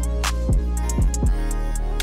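Background music with a drum beat and a deep bass whose notes slide down in pitch, with crisp high hits keeping time.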